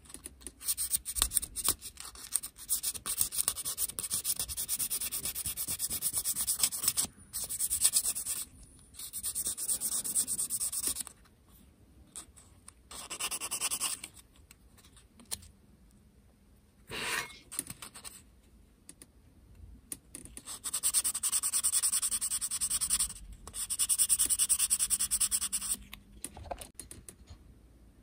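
Plastic model parts being sanded by hand: repeated bursts of quick back-and-forth rubbing strokes, each burst lasting from about a second to several seconds, with short pauses between.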